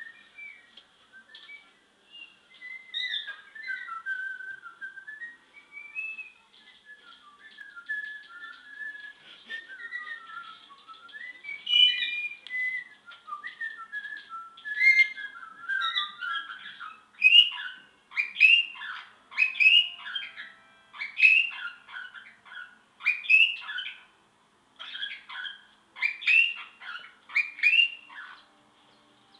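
Pet parakeet whistling a tune it is learning, its notes wavering up and down; from about halfway on it breaks into louder, choppier chirps and whistles, roughly one or two a second.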